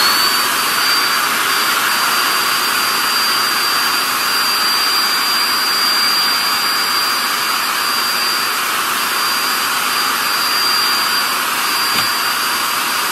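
Andis hand-held hair dryer blowing steadily: a rush of air with a high motor whine that settles to a steady pitch right at the start. It is held to a wig's lace front to dry the holding spray so the lace sticks.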